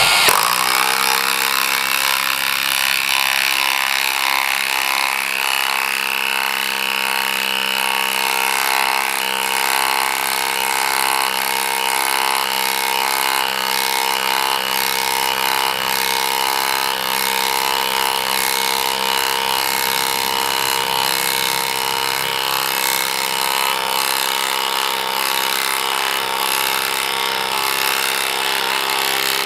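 Milwaukee M12 FID cordless impact driver hammering steadily on speed setting 3 as it drives a long 10 mm screw into a block of hard timber. It kicks in abruptly and stays noisy and even, under heavy load.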